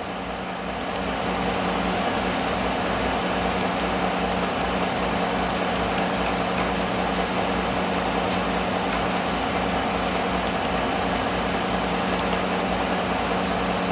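2014 Chevrolet Silverado's engine idling steadily, an even low hum.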